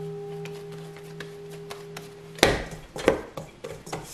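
Stainless-steel stand-mixer bowl ringing with a steady, slowly fading tone of several pitches after being knocked. About two and a half seconds in, a thump cuts the ringing off, followed by a few softer knocks and bumps as bread dough is handled in the bowl.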